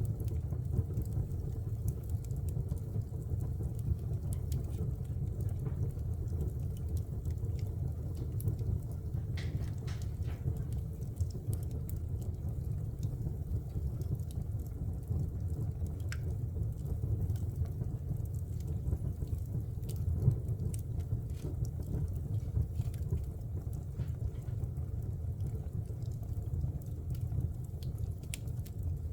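Fire burning in a fireplace: a steady low rumble with scattered crackles and pops, one sharper pop about twenty seconds in.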